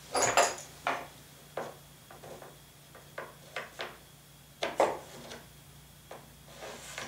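Tools and small objects handled on a workbench: a series of light knocks and clatters, loudest about half a second in and again near five seconds, over a faint steady low hum.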